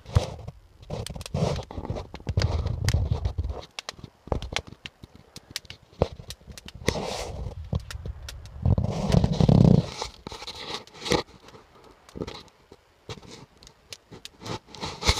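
Scraping and rustling with many sharp clicks and deep thumps: handling noise from a handheld phone moved about among branches and rocks, loudest around two and nine seconds in.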